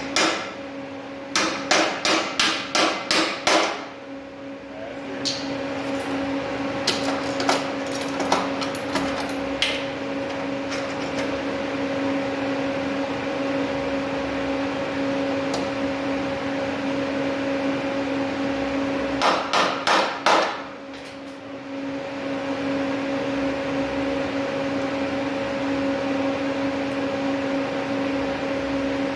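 Hammer striking metal: a quick run of about seven blows near the start, a few lighter taps, and four more blows about twenty seconds in, over a steady hum with a constant tone and a continuous noisy hiss.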